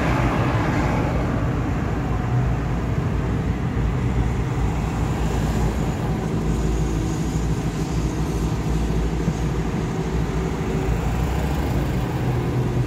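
A car's engine and tyre noise heard from inside the cabin while driving at a steady speed: an even, continuous low drone.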